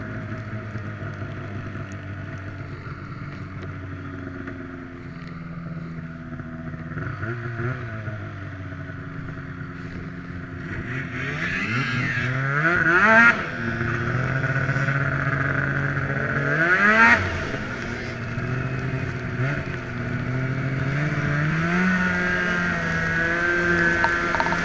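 Snowmobile engines running, revving up several times with a quick rise in pitch each time the throttle opens.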